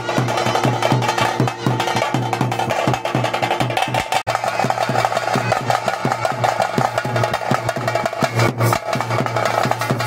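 Theyyam drumming on chenda drums: fast, dense, continuous strokes played without a break.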